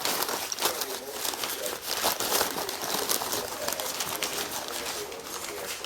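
Newspaper and packing paper crinkling and rustling as a cat plays in it, with a soft, low wavering tone underneath.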